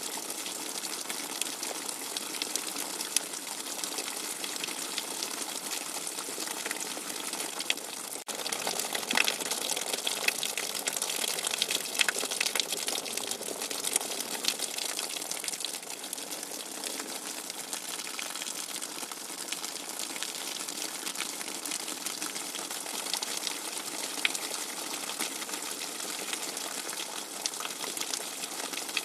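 Heavy rain with fast-running water: a steady, dense hiss full of small splashes and drops, with a momentary break about eight seconds in, after which it is slightly louder.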